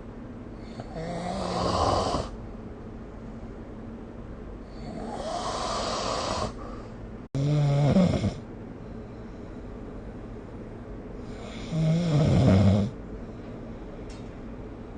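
A sleeping person snoring: four rough snoring breaths a few seconds apart, each lasting a second or two.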